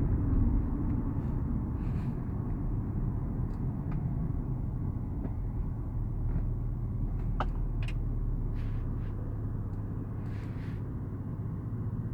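Land Rover LR4 running with a steady low rumble, overlaid by irregular sharp clicks every second or two, the loudest about seven seconds in: the click noise being recorded.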